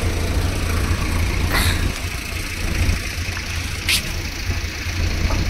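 Diesel engine of a JCB backhoe loader idling steadily, with two brief clinks about one and a half and four seconds in.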